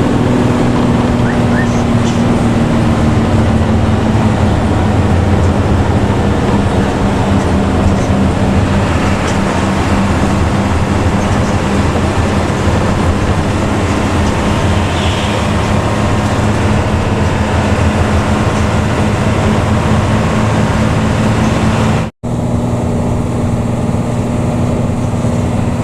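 Intercity bus with a front-mounted engine and a growling "ngorok" exhaust, running steadily under way and heard from inside the cabin: a continuous low engine drone over road noise. The sound drops out for an instant about 22 seconds in, then the same drone carries on.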